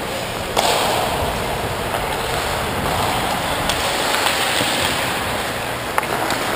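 Steady rush of wind on the microphone of a skater's camera, mixed with skate blades scraping the ice. It gets louder suddenly about half a second in, and a few faint clicks come through later.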